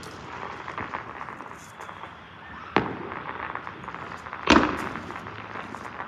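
Fireworks going off: a sharp bang a little under three seconds in and a louder bang about a second and a half later, with faint popping and crackling between them.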